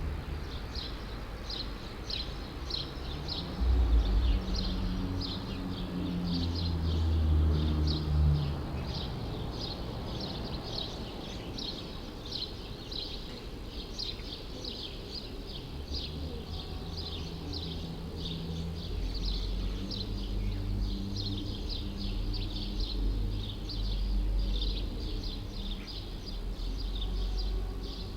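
Small birds chirping rapidly and continuously over the low rumble of city traffic. Vehicles pass louder about four to eight seconds in and again from about sixteen seconds on.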